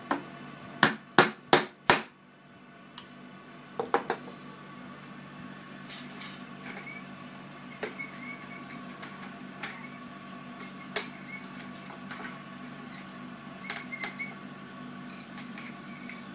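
Hammer tapping a small nail into the end bar of a wooden bee frame, five quick sharp taps in the first two seconds and a few more about four seconds in. Lighter clicks and taps follow as the frame wire and spool are handled, over a steady hum.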